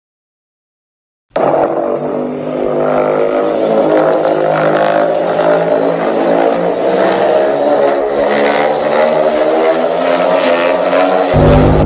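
A loud, sustained monster sound effect for Godzilla: a steady, deep pitched drone with a crackle over it. It starts after about a second of total silence.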